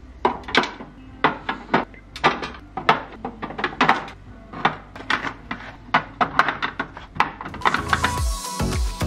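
Eggs being set one by one into a clear plastic egg tray: a run of irregular light clicks and knocks of eggshell on plastic, a few a second. Faint background music runs underneath and grows louder near the end.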